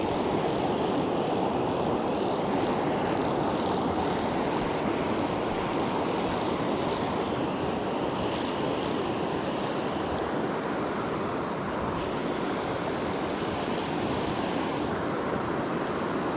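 Creek water rushing steadily. A rapid, high-pitched pulsing repeats over it in three stretches, the longest lasting about seven seconds.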